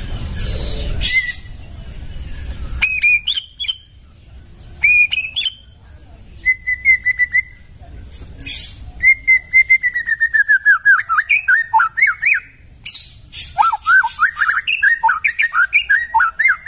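White-rumped shama singing: a string of clear whistled phrases and fast runs of short repeated notes, after a brief stretch of rushing noise at the start.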